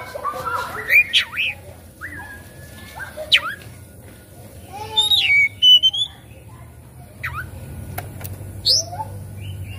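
Oriental magpie-robin singing in broken phrases: separate clear whistles, one held note, quick rising sweeps and a short loud burst of calls about halfway through, with pauses between them.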